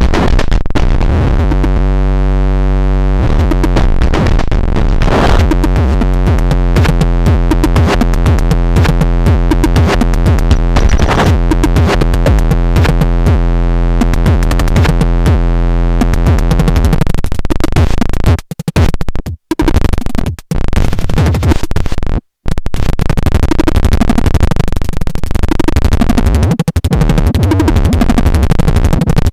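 Loud noise music: a dense drone of many stacked steady tones, chopped by rapid pulses. A little past halfway it breaks off in several abrupt dropouts to silence. It then returns as a rougher, noisier texture.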